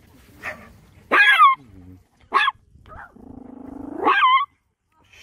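A dog barking and growling: a few sharp barks, then a low growl that runs straight into a long, loud bark about four seconds in.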